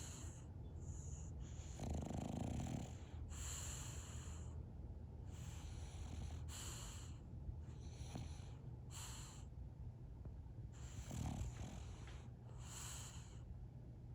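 French bulldog snoring in its sleep: wheezy, hissing breaths about every one to two seconds, with louder, deeper snorts about two seconds in and again near eleven seconds. Such snoring is typical of the breed's short, flat-faced airway.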